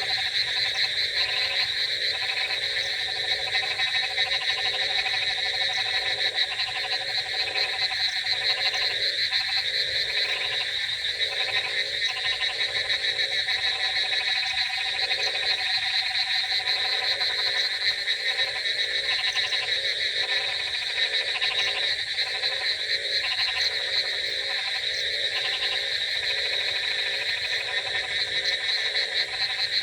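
Chorus of frogs croaking over and over in an even, steady rhythm, over a continuous high-pitched trill.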